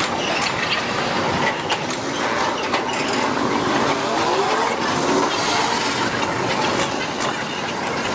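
Freight train of flatcars rolling past on the rails, played back at four times normal speed, so the wheel clatter and squeal run fast and high-pitched.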